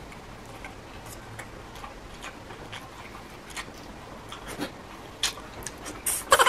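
Close-miked eating sounds from a person eating shrimp by hand: scattered wet lip smacks and small clicks as the shrimp is peeled and chewed, getting more frequent toward the end, with a louder sucking sound near the end as a shrimp is put to the lips.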